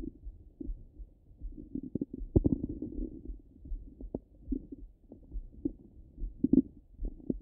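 Stomach and bowel sounds heard through a stethoscope on the belly: irregular gurgles and short pops with a longer rumbling gurgle about two seconds in.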